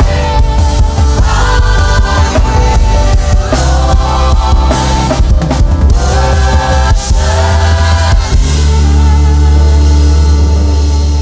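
Gospel worship music: a choir singing over a band with drum kit and bass. About eight seconds in the drums stop and a held low chord rings on.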